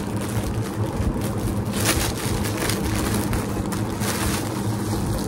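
Clear plastic packaging crinkling now and then as a wrapped nightie is handled, over a steady rushing hum.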